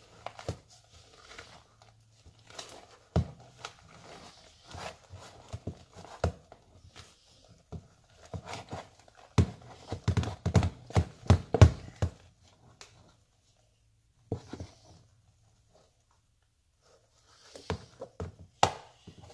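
Spatula stirring and scraping thick, fluffy shaving-cream slime in a plastic bowl: irregular squelches, scrapes and knocks, busiest about halfway through, with a quiet spell before a few more strokes near the end.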